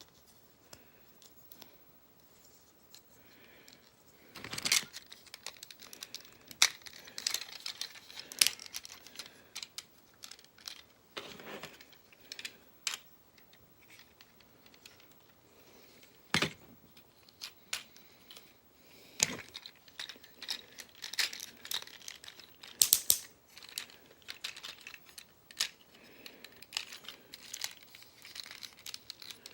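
Plastic transforming robot toy being handled and reconfigured, its parts clicking and snapping at irregular intervals between softer rustling of plastic.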